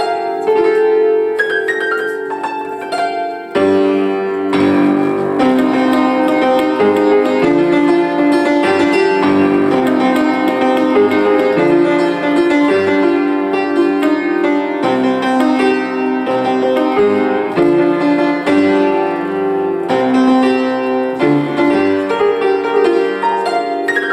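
Keyboard played solo: a continuous run of ringing, sustained notes and chords, with a brief break about three and a half seconds in.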